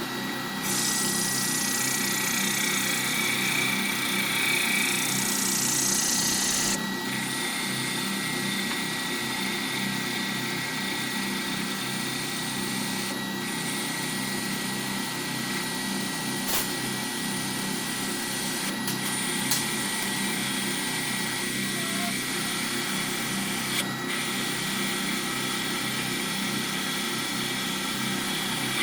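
Metalworking machine tool running steadily while machining a steel shaft, with a constant high whine and a hiss of cutting. The hiss is loudest for the first several seconds, and the sound changes abruptly a few times.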